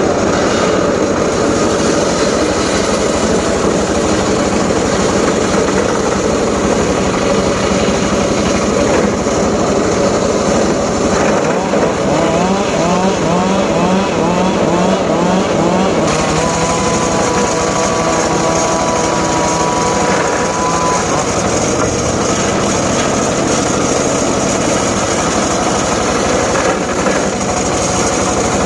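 Engine-driven saw running steadily at cutting work, a loud continuous engine drone with no pauses.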